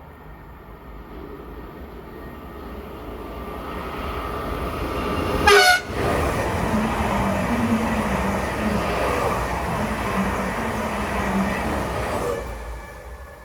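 A train approaching and passing through at speed, with a short horn toot as it arrives, the loudest moment. The rumble of the passing train then runs loud for about six seconds before dropping away sharply near the end.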